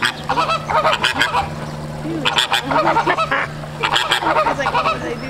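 A flock of flamingos honking in goose-like bursts, several birds calling over one another in three or four rounds, over a faint steady low hum.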